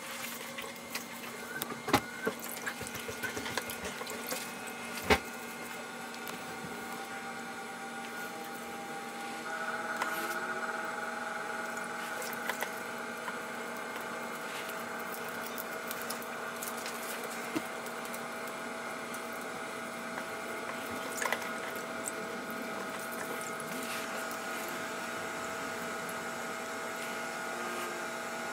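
Water sloshing and splashing in a plastic tub as carbon fiber machined parts are rinsed by hand, with a few sharp clicks in the first seconds. About a third of the way in, a steady machine whine comes on and keeps running.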